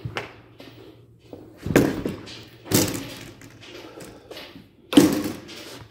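A houseboat's cabin door being opened and someone climbing aboard: several heavy thumps and clunks with lighter knocks between, the loudest near the end.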